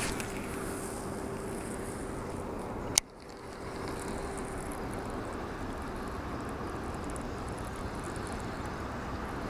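Steady outdoor noise on a boat with a faint steady hum. One sharp click comes about three seconds in, after which the sound dips briefly before settling again.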